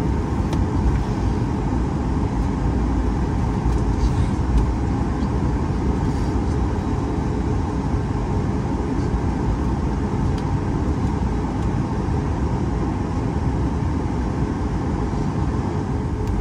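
Cabin noise aboard a Boeing 737 MAX 8-200 taxiing: a steady low rumble from its CFM LEAP-1B engines at taxi power and the airframe rolling along the taxiway, with a few faint clicks.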